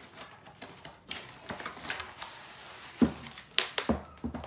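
A cardboard box and a plastic-wrapped solar panel being handled as the panel is slid out of the box: scattered rustling and clicking, then a few sharp knocks about three seconds in as they are laid on the table.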